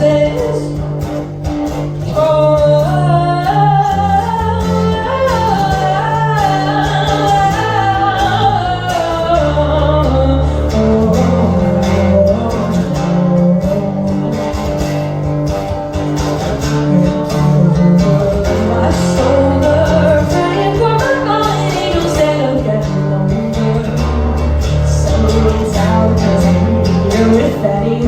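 Live performance of a song: a lead vocal sung over guitar, with a low bass line moving under it.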